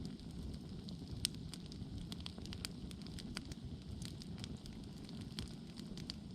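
Wood campfire burning, a steady low rush of flames with irregular crackles and snaps, one sharper pop a little over a second in.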